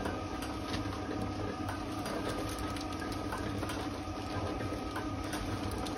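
Silk warping machine running steadily, a motor hum with scattered light ticks, as the warp threads wind off the large drum onto the warp beam.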